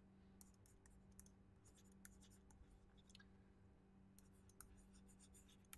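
Near silence, with faint scattered clicks and scratches of a stylus on a tablet screen as a word is hand-written, over a faint steady hum.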